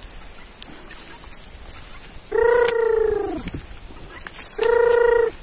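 A farm bird calling loudly twice, each a drawn-out, even-pitched call; the first lasts about a second and drops in pitch at its end, the second is shorter.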